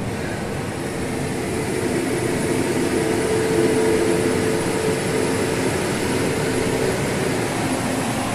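Lorry driving on a highway: engine drone with road and wind noise. A steadier, deeper engine hum swells from a second or two in and fades out near the end.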